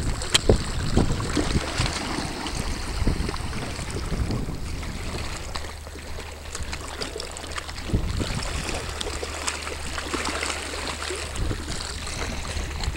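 Seaside ambience: wind gusting on the microphone over small, irregular water splashes and lapping, with a steady low hum from about four seconds in.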